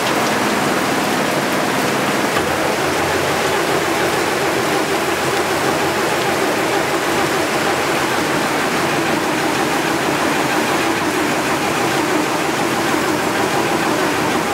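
Starter cranking a 1940s Chevrolet gas straight-six steadily from about two seconds in, without it firing: the engine is getting no spark. Steady rain hiss underneath.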